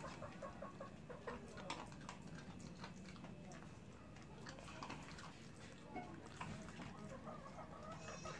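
Chickens clucking faintly in short repeated notes, over the small crunching clicks of a dog chewing dry kibble.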